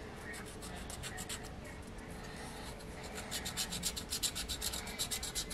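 Wooden stylus scratching the black coating off a scratch-art card in quick back-and-forth strokes. The scraping is faint at first, then grows louder and steadier about three seconds in, at about five strokes a second.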